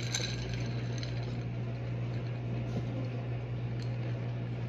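Faint sipping of an iced drink through a straw, with light clinks of ice against the glass, over a steady low hum.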